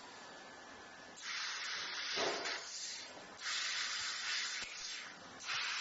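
Robot-arm laser cutting head hissing at the nozzle as it cuts a pressed sheet-metal part. The hiss comes in three bursts with short pauses between them, the first starting about a second in.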